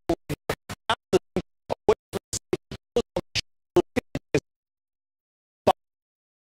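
Stuttering digital audio glitch: a man's voice chopped into very short clipped snippets, about four or five a second, with dead silence between them, stopping after about four seconds apart from one more blip near the end. The broadcast audio is dropping out and skipping.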